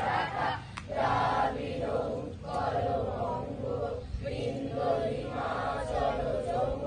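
A group of schoolchildren chanting together in unison, in phrases of about a second and a half with short breaks between.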